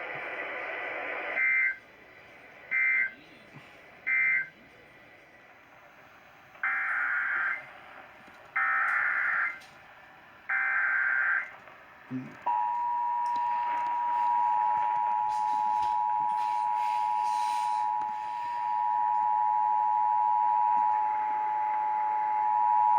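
Emergency Alert System data tones over radio: three short screeching bursts, the end-of-message code, then three longer bursts, the SAME header of the next alert. About halfway through, the EAS two-tone attention signal comes in, two steady tones sounding together, and holds for about ten seconds.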